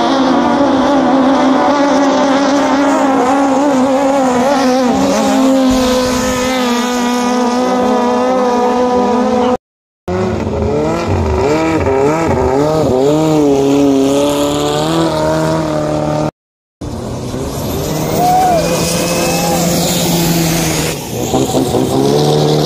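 Longtail racing boat engines running flat out as the boats speed past, their pitch rising and falling. The sound breaks off abruptly twice where short clips are joined.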